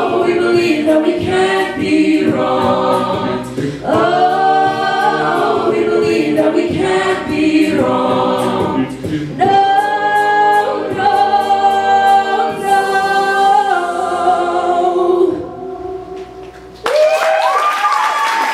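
A cappella group singing in close harmony under a female lead, with beatboxed vocal percussion, ending on a long held chord that fades away about fifteen seconds in. The audience then breaks into applause and cheering near the end.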